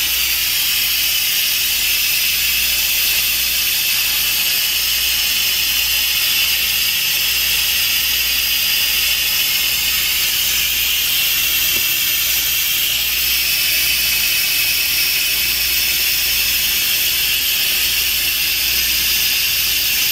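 Instant Pot electric pressure cooker venting steam through its release valve during a quick release of pressure after cooking at high pressure: a loud, steady hiss.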